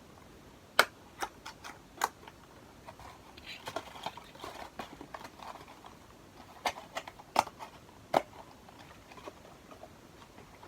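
Small items and packaging being handled at close range: a series of sharp clicks and taps, with soft rustling between about three and a half and six seconds in.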